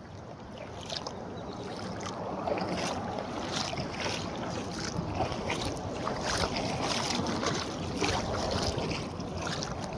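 Steady rushing noise of wind on the microphone and moving floodwater, swelling in the middle and easing a little near the end.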